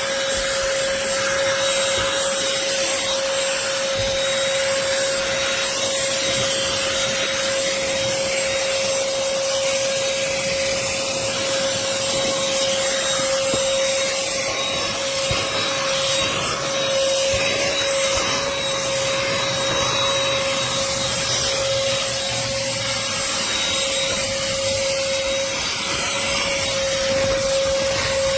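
Black+Decker cordless handheld vacuum running continuously: a steady motor hum over a rush of air.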